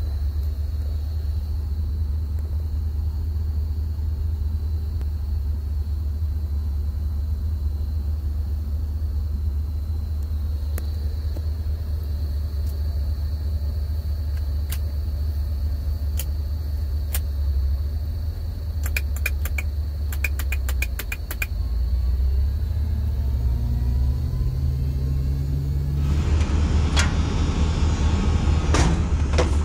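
Isuzu cabover sweeper truck's engine idling, a steady low rumble with a faint high whine, heard from inside the cab. Scattered sharp clicks come through the middle, with a quick run of them about two-thirds of the way in, and near the end the sound opens up and grows louder.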